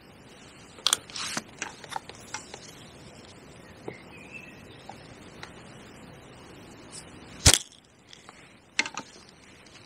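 Scattered clicks and knocks of fishing tackle being handled, a cluster in the first couple of seconds and more near the end, with one much louder sharp snap about seven and a half seconds in.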